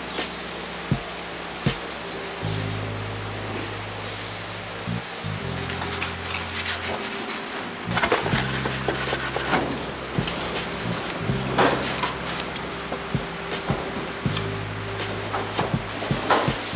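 Hand sanding and scuffing of a primed car fender with a sanding block and an abrasive scuff pad: irregular rasping rubbing strokes. A lo-fi music track with steady low bass notes plays underneath.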